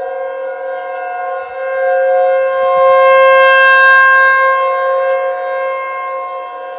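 Outdoor warning siren sounding a steady, multi-tone chord for a statewide siren test. It swells louder about two seconds in, peaks, then eases back.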